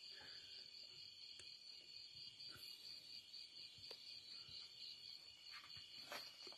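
Near silence, with faint, steady high-pitched chirring of crickets and a few faint clicks.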